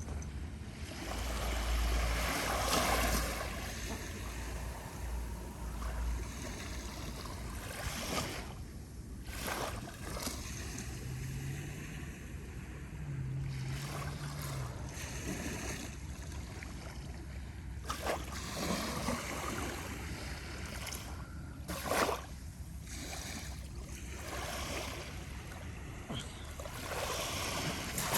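Small, gentle ocean waves lapping and washing onto a beach on a very calm sea, swelling and falling back every several seconds, with a few brief sharper splashes.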